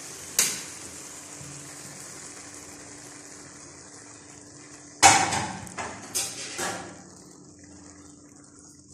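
Light sizzling of noodles and peas in a hot wok, fading slowly once the stove is off. A single sharp click comes near the start, and a few loud knocks and scrapes of metal on the pan come about five seconds in.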